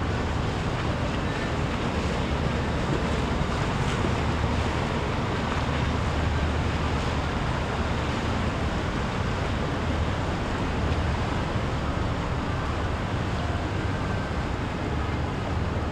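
Steady rush of wind on the microphone and waves at a sea inlet, with boat engines running underneath.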